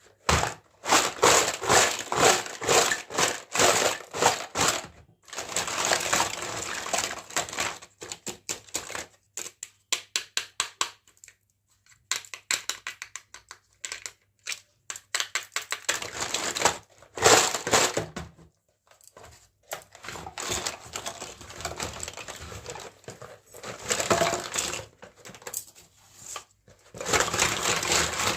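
Plastic packaging crinkling and crackling as a toy kitchen set is unboxed, broken by runs of quick sharp clicks as small plastic toy pieces are handled.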